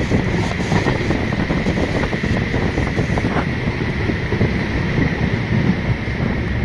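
Passenger train running at speed: a steady, loud rumble of the coach and wheels on the track, with wind buffeting the microphone and a thin steady whine above it.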